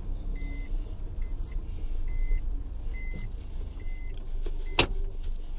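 Car's in-cabin reversing beeper sounding short high beeps a little under a second apart over the low running of the engine. The beeps stop about four seconds in, as the car comes out of reverse, and a single sharp click follows near the end.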